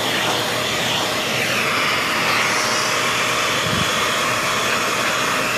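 Dyson Cinetic Big Ball vacuum running steadily through its pet grooming tool as it is drawn through a husky's undercoat, its airflow hiss shifting slightly in tone. A brief low bump a little past the middle.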